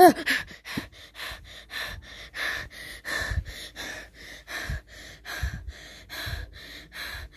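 A brief vocal cry at the start, then quick breathy puffs and gasps, about three a second. A few low thumps come in the second half.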